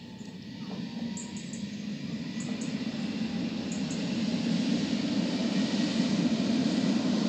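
ETR 521 'Rock' double-deck electric regional train running along the platform toward and past the microphone. It makes a steady rumble that grows louder all through.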